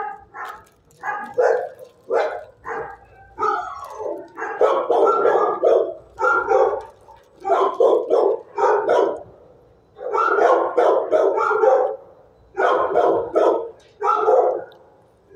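Dogs barking in rapid bouts of several barks each, with short pauses between the bouts.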